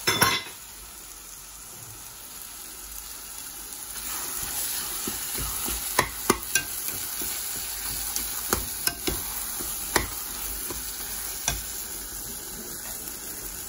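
Onion-tomato masala sizzling steadily in a black kadai as yogurt is stirred into it with a metal spoon. The spoon scrapes the pan at the start and clinks against it several times from about six seconds in.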